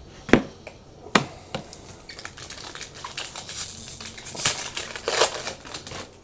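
Two sharp snaps, then a crinkling, crackling rustle of a trading-card pack's wrapper being torn open and handled.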